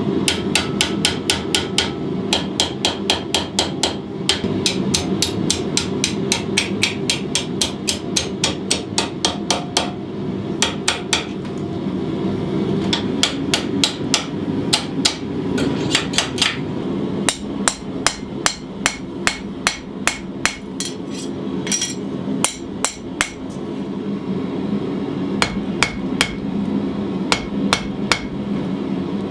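Hand hammer striking hot steel on an anvil while forging and opening the slot in a knife guard: quick runs of sharp, ringing blows, about three or four a second, broken by short pauses.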